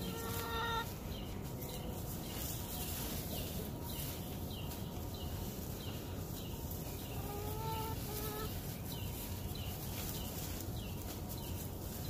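Hens clucking briefly, once at the start and again about two thirds of the way through, over a steady outdoor background in which a short, high chirp repeats roughly twice a second.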